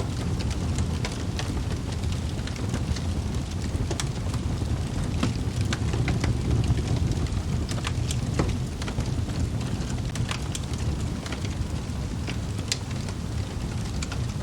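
Wood fire burning in a fireplace: a steady low rumble of flames with irregular sharp crackles and pops from the logs, a few each second.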